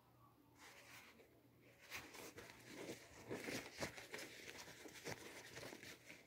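Faint rustling and handling noise as a fitted baseball cap is turned over in the hand, busier from about two seconds in, with small clicks and scrapes.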